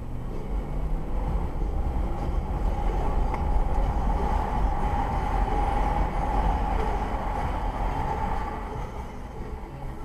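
Road and engine noise inside a moving car: a steady low rumble with tyre roar. It builds over the first few seconds as the car gets up to speed and eases slightly near the end.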